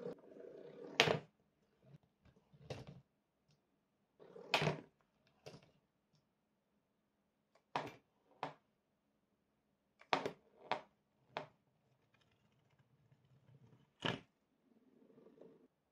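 Steel balls, glass marbles and magnets clicking and knocking against each other and snapping together along a cardboard marble run, about ten sharp clicks spread unevenly, with soft rolling of balls on the cardboard tracks between some of them.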